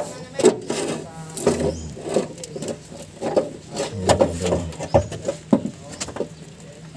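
Irregular knocks, clicks and rubbing from the steering shaft's universal joint and steering rack being handled and fitted under a Suzuki Multicab.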